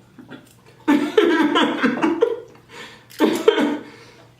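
A person laughing in two bursts of quick, pulsing laughter, the first about a second in and a shorter one near three seconds.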